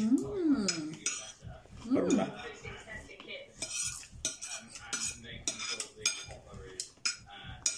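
Metal spoons and forks clinking and scraping on ceramic dinner plates during a meal, in many short irregular clicks. A brief voiced murmur comes near the start and another about two seconds in.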